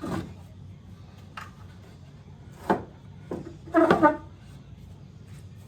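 Wooden benchwork boards being handled and pushed into place: a few separate knocks, then a short tonal creak of wood rubbing on wood about four seconds in.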